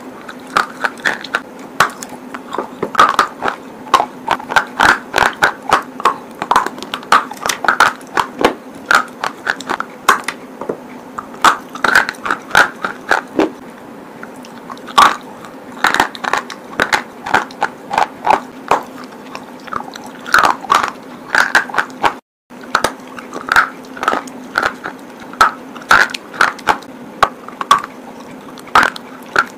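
Close-miked biting and chewing of a dry red clay bar: crisp crunches, several a second, over a faint steady hum.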